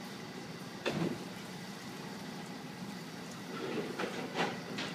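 HT-25 door-type commercial dishwasher running, a steady hiss of water and machinery from inside its stainless-steel cabinet. A sharp knock comes about a second in, and a few more clatters near the end.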